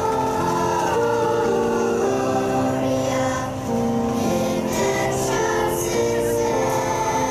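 Children's choir singing a song, with notes held steady and changing in steps.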